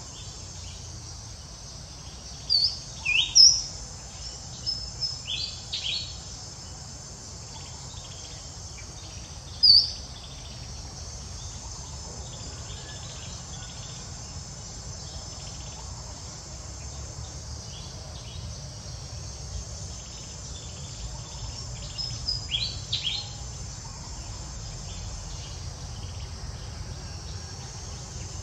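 Steady chorus of crickets and other insects, a continuous high trilling hiss. Short high chirps cut in a few times: a cluster about three to six seconds in, a sharp one near ten seconds, and another cluster near twenty-two seconds.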